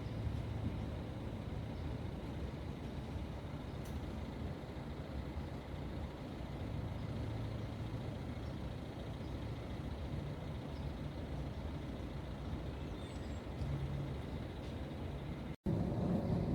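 Steady low rumble of road traffic, with engine hum swelling and fading as vehicles pass. The sound cuts out for an instant near the end and comes back louder.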